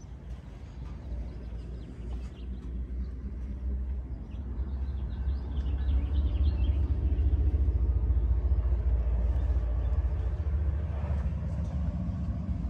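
Dodge Ram Rumble Bee's 5.7-litre Hemi V8 idling, a steady low exhaust rumble that grows louder about halfway through as the microphone comes round to the rear of the truck.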